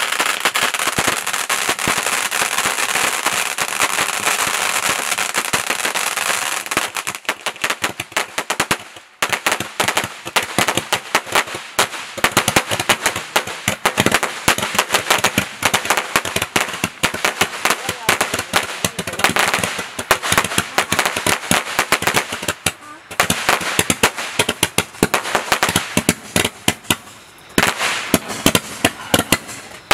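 Magnus 'Didn't See That Coming!' 130-shot firework cake (M1652) burning: its ground fountain hisses steadily for about the first seven seconds, then it fires a rapid, uneven run of shots and crackling pops, with a couple of brief pauses near the end.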